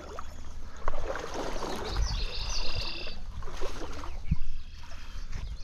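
Running stream water with wind and handling rumble on a body-worn camera's microphone, broken by a few light knocks. About two seconds in, a brief high-pitched call sounds.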